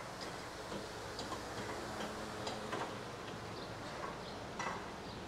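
Scattered light clicks and taps of hand work around a car on a workshop lift, irregular and a few seconds apart, over a steady low hum.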